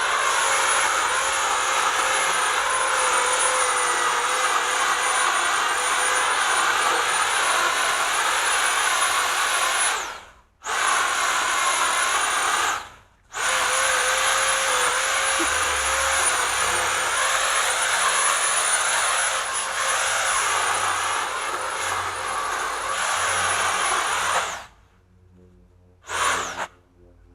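Chainsaw running at full speed in long, steady runs with a high whine. It stops short twice, about ten and thirteen seconds in, then cuts off with one brief final burst near the end.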